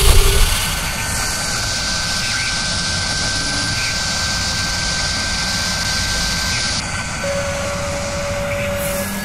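Intro title sound effect. It opens with a heavy hit and a falling tone, then a steady, loud, jet-like rushing noise with a thin high whine held through it. A second, lower steady tone joins about seven seconds in.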